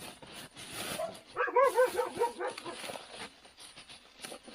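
A dog yipping and whining, a quick run of short high calls about a second and a half in.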